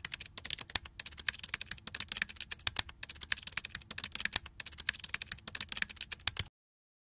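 Typing sound effect: a rapid, uneven run of key clicks, several a second, that cuts off abruptly about six and a half seconds in.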